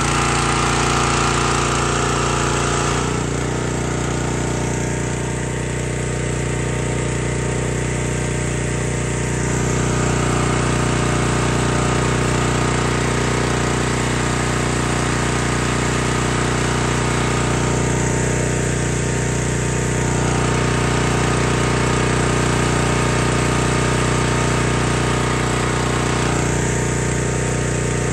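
Small gas engine of a pressure washer running steadily, driving its 4 gpm AAA pump. The upper part of the sound shifts a few times, at about 3, 10, 18 and 26 seconds in.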